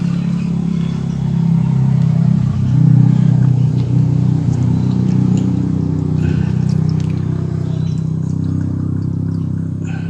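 Low, steady mechanical drone, like an engine running. It grows louder up to about three seconds in, then slowly eases off.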